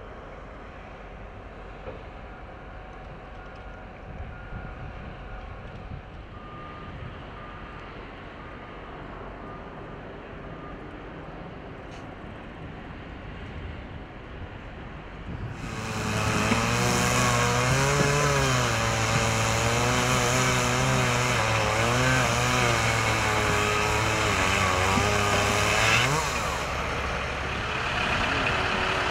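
Low outdoor rumble with faint, evenly spaced beeps, then about halfway through a heavy vehicle's engine comes in loud and close, its pitch wavering up and down for about ten seconds before easing off near the end.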